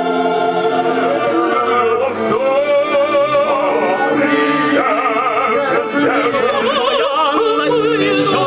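Operatic singing with orchestra: held notes, the voice singing with a wide vibrato from about halfway.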